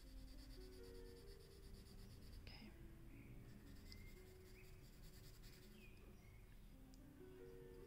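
Graphite pencil hatching on paper, faint short scratching strokes of shading.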